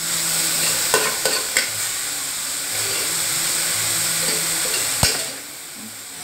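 Grated carrot frying in ghee in an aluminium pressure cooker, sizzling steadily while a metal spoon stirs and scrapes it, with a few light clicks of the spoon on the pot. There is one sharp knock about five seconds in, after which the sizzle is quieter. This is the medium-flame stage where the carrot is fried until its raw smell is gone.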